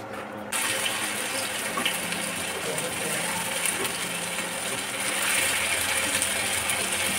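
Marinated chicken pieces sizzling in hot oil in a frying pan as they deep-fry. The sizzle starts suddenly about half a second in, as the pieces go into the oil, and then runs on steadily.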